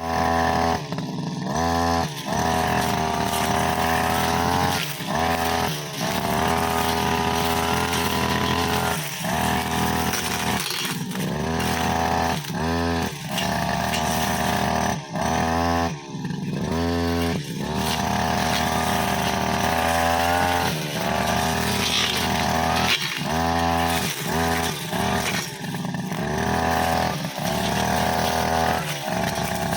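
Brushcutter engine running at high revs while its blade cuts long grass and saplings, the pitch dropping and climbing again every second or two as the throttle is eased off and squeezed.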